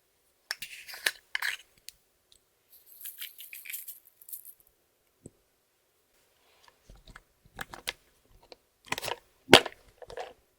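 Clear slime being handled and mixed: sticky clicks, pops and crackles in short clusters, with a brief hissing rustle about three seconds in.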